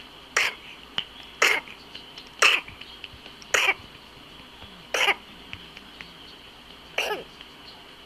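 A person coughing in a fit of six hard, separate coughs about a second apart, the last after a slightly longer pause: the coughing spell of whooping cough (pertussis).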